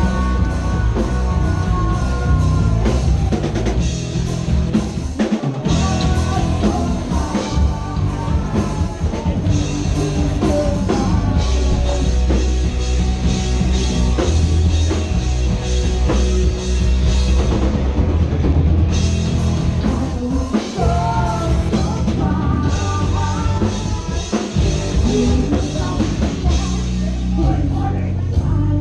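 Live rock band playing loudly, with drum kit and singing. The band drops out briefly about five and a half seconds in and again about twenty-one seconds in.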